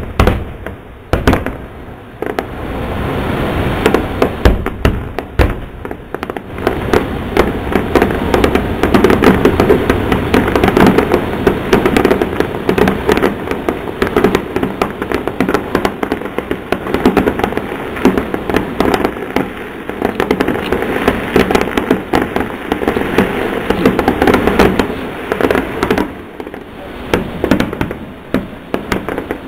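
Aerial fireworks shells bursting in a rapid barrage of bangs and crackling. It is densest and loudest through the middle and thins out toward the end.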